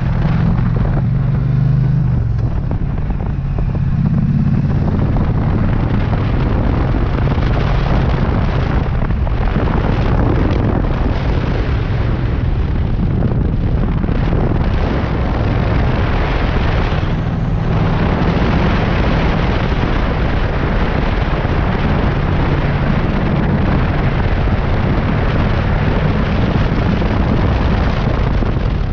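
Triumph Street Cup's 900 cc parallel-twin engine running as the motorcycle is ridden at road speed, mixed with heavy wind rushing over the microphone. The engine note is plainest in the first few seconds, then largely covered by the wind.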